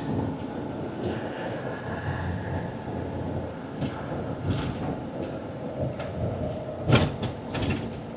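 Vehicle running, heard from inside the cabin: a steady road rumble with rattles and several sharp knocks, the loudest about seven seconds in.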